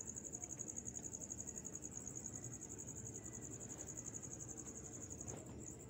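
A cricket trilling steadily in a rapid, even, high-pitched pulse, over a faint low rumble.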